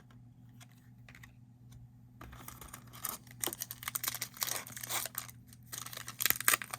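A foil-wrapped trading-card pack being torn open, its wrapper crinkling and crackling. The tearing starts about two seconds in after a quiet start.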